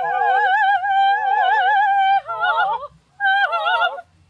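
Operatic singing by several high voices with wide vibrato, in two or three parts. One voice holds a long high note for about two seconds over a lower line, then the voices move together in short phrases broken by brief pauses.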